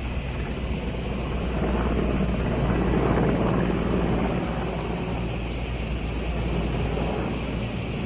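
Outdoor wind rumbling on the microphone, swelling a little about three seconds in, with insects droning steadily at a high pitch.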